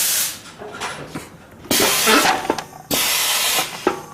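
Vegetable stick slicer running on sweet potato: two short bursts of hiss, about a second apart, with clicks and knocks between them.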